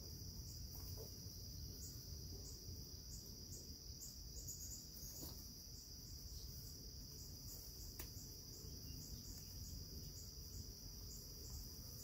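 A steady, high-pitched insect trill, like crickets, over a faint low rumble, with a couple of faint clicks.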